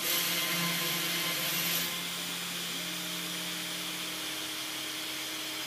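CNC router's 400 W spindle running steadily with a thin bit drilling holes in MDF. It is louder for about the first two seconds as the bit cuts, and a steady stepper motor whine rises and falls away as the machine moves.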